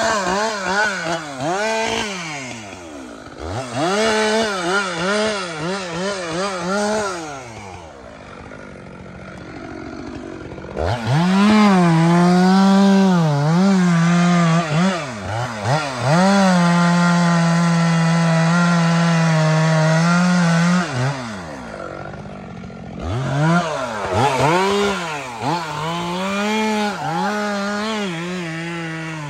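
Stihl MS 462 C two-stroke chainsaw revving up and down repeatedly, then held at high revs for about ten seconds in the middle while cutting wood. It drops back toward idle twice: before the long cut and shortly after it.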